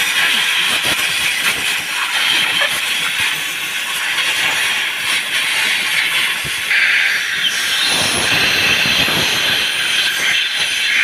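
Compressed air from an air blow gun hissing steadily into the EGR valve's wiring connector, blowing out dust and sprayed cleaner to clear an EGR sensor circuit-low fault (P0405). The hiss shifts a little in tone as the nozzle is moved.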